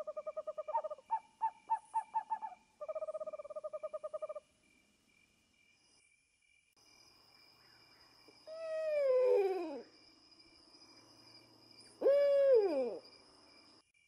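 Ural owl calling. First comes a held hoot, then a quick run of about seven short hoots, then another held, wavering hoot. After a pause there are two separate calls that fall in pitch, a few seconds apart.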